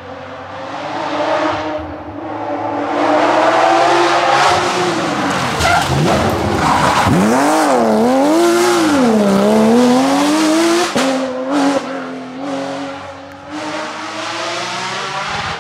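Porsche 911 rally car's flat-six engine at high revs, rising as it approaches, then dropping sharply under braking and downshifts about six seconds in. Through the corner the revs swing up and down several times, then a gear change cuts in sharply near eleven seconds and the engine pulls away, fading.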